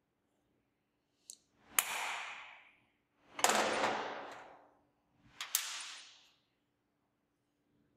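Three sharp metal-on-metal strikes on a steel bench block during number-punch stamping of a steel part, about two seconds apart, each trailing off over about a second.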